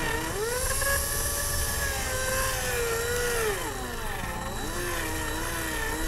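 Power drill motor whining as a small twist bit drills out the rivet head on the metal base of a diecast toy car. The pitch wavers, dropping about three and a half seconds in and staying lower after.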